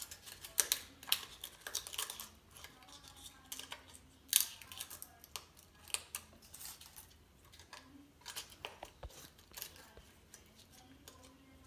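Hands working bay leaves under the skin of a raw turkey in a disposable aluminium foil roasting pan: faint, irregular crinkling and clicking, with a louder crackle about four seconds in.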